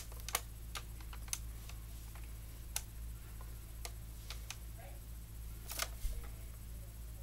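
Scattered, irregular sharp clicks and taps of hard plastic as a Nerf blaster with a GoPro camera mounted on it is handled and turned, over a faint steady low hum.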